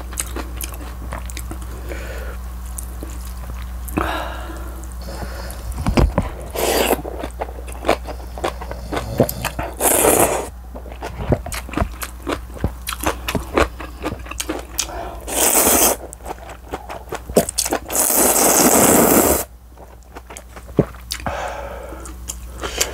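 Close-miked chewing and crunching of kimchi with wet mouth clicks, broken by three loud slurps of thin wheat noodles in broth, the last and longest lasting about a second and a half.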